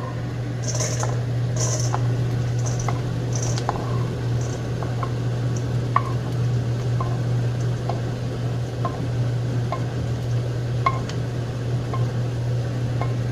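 A spatula clicking and scraping against a pan at irregular intervals as nuts are stirred in ghee, with a few short hissy bursts in the first few seconds, over a steady low hum.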